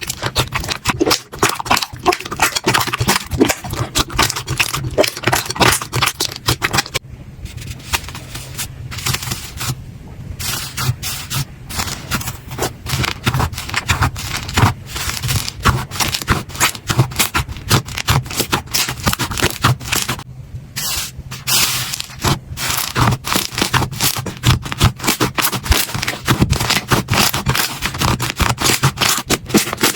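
Slime being squeezed, poked and stretched by hand, making a dense run of small sticky clicks and pops with a few brief pauses.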